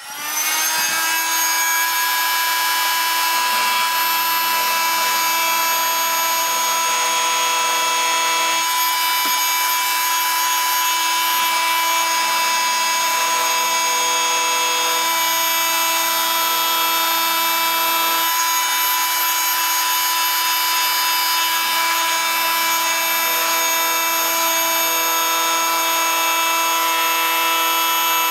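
Rockwell Sonicrafter oscillating multi-tool switching on and running with a steady high whine as its blade cuts through quarter-inch-wall acrylic tube, with the lower cutting noise shifting every few seconds as the blade bites.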